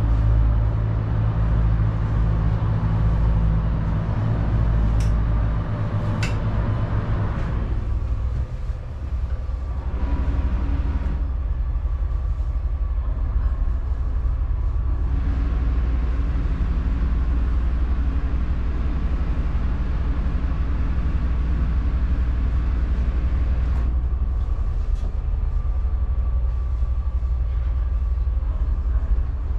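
Steady low rumble of a steel trawler yacht's engine and thrusters, heard inside the wheelhouse while she is manoeuvred alongside at low speed. A higher hum drops out about eight seconds in, and two sharp clicks sound about five and six seconds in.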